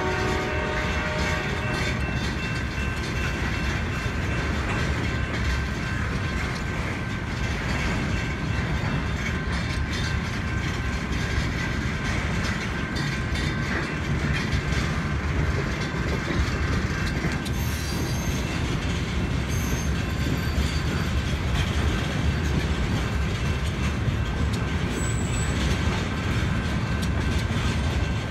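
CSX freight train cars rolling steadily past: a rumble of wheels on rail with clicks over the rail joints and a thin, steady high wheel squeal. The locomotive horn dies away in the first second or two.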